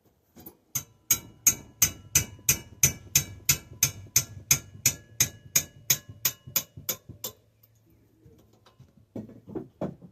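Small hammer striking metal on a stuck bicycle part, about twenty sharp, ringing blows at roughly three a second, then a few lighter knocks near the end.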